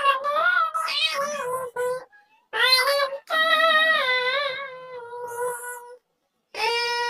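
High, synthetic-sounding cat voice, meows tuned to sing a sholawat melody in long held notes, in phrases with short pauses between them and a full break about six seconds in.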